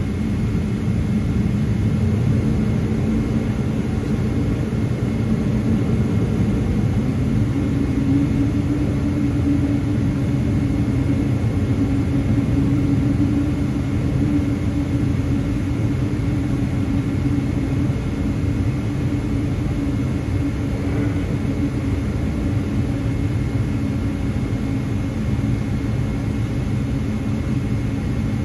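Boeing 777-300ER's GE90 jet engines at low taxi power, heard inside the cabin by the wing: a steady low rumble with a thin, steady high whine, while the airliner taxis onto the runway before its takeoff run.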